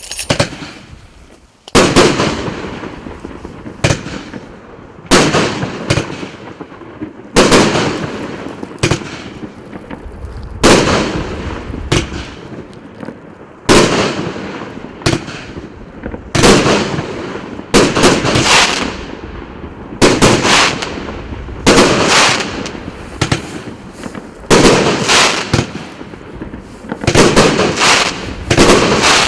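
A 60-shot, 1.25-inch consumer firework battery firing, one loud bang after another at about one a second, each fading over about a second before the next.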